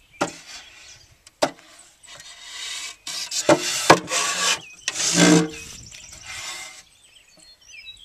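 Western red cedar hive boxes knocking and scraping against each other as they are handled: a couple of sharp wooden knocks in the first second and a half, then several long rubbing scrapes of wood on wood.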